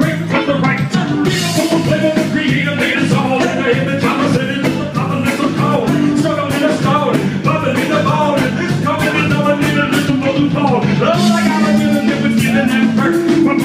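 Live band playing loudly, with a steady drum beat, a stepping bass line and a wavering melodic lead over it.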